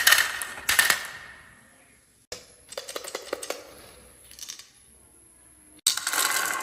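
Marbles clicking and rattling as they roll down a marble run, the rattle fading out over the first two seconds. After an abrupt cut come sparser, quieter clicks, then a brief lull, then a loud burst of rattling near the end.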